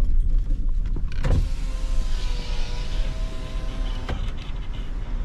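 Car's electric power-window motor whining steadily for about two and a half seconds as the side window is lowered, starting and stopping with a click. A low engine and road rumble runs underneath.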